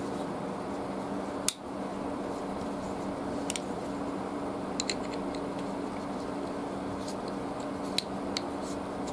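A few sharp, isolated small metallic clicks and taps from the folding knife's parts and a small screwdriver being handled during disassembly, one louder click about a second and a half in, over a steady low hum.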